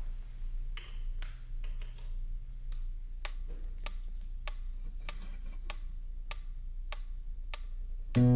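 Steady clock-like ticking, a little under two ticks a second, starting about three seconds in after a few fainter, irregular clicks.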